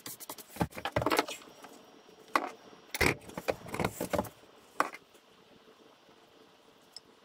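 Quick brushing strokes at the start, then a run of knocks and rattling clatter from wood and tools being handled on a board, loudest about one and three seconds in.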